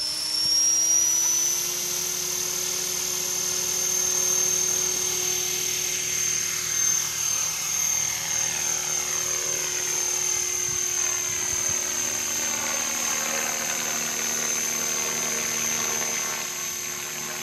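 Align T-Rex 500 electric RC helicopter running at flying rotor speed: a steady high-pitched motor and rotor whine that rises slightly in the first second or two as the head spools up. It lifts off and climbs partway through.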